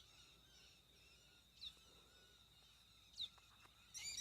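Birds calling: three sharp high chirps about a second and a half apart, then a quick cluster of calls near the end, over fainter twittering and a steady thin high tone.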